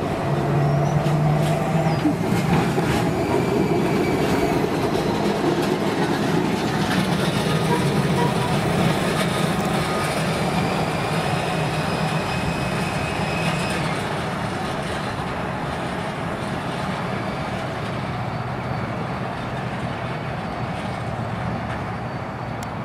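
Heritage electric streetcar running on its rails: a steady rumble of wheels and running gear with a faint high whine. It grows gradually quieter after about halfway.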